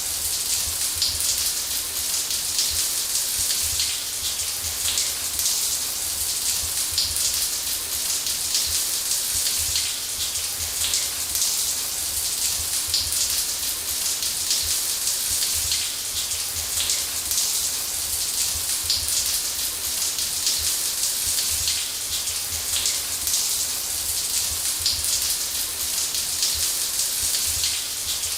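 Shower running steadily, its spray hissing and pattering on a surface, with a low rumble beneath.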